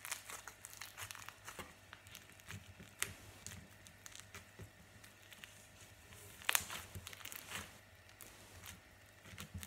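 Fruit Loop slime being squeezed and poked by hand on a tabletop, making soft crackling clicks and pops, loudest about six and a half and seven and a half seconds in.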